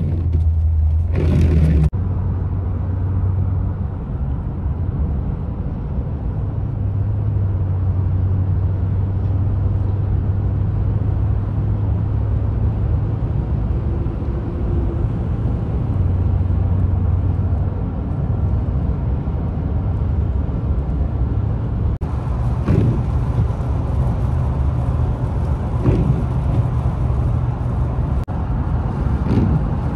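Car cabin road noise while driving on a wet highway: a steady low engine and tyre drone with tyre hiss. Near the end there are brief swishes about every three seconds.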